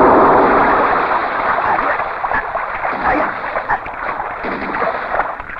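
Water splashing and churning as men struggle in a stream: a loud rushing wash that eases after the first second or so, with scattered small crackles through it.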